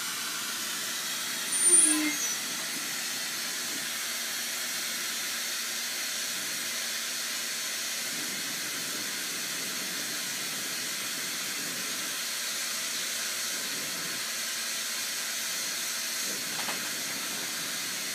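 Lampworking bench torch flame hissing steadily, with one brief, louder sharp sound about two seconds in.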